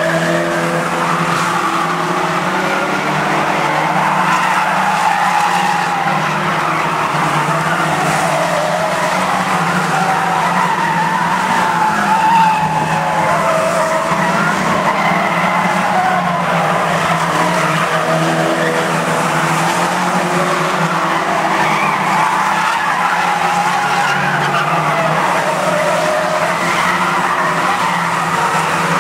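A pack of banger stock cars racing on an oval track, several engines revving hard together with tyres skidding and squealing, the sound rising and falling without a break.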